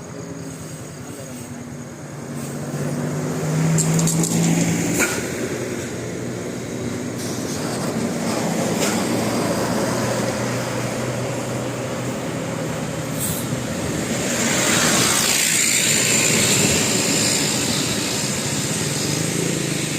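Heavy bus running close by: a low steady drone that swells about two to five seconds in. Later a loud rush with hissing builds up, as of a bus passing.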